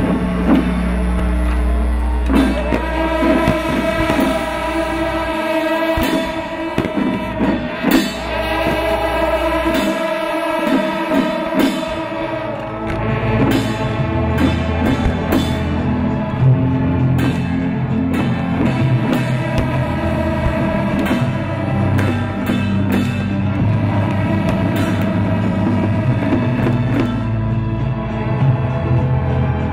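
Loud rock-style music with drums, guitar and singing, cut through by many sharp cracks.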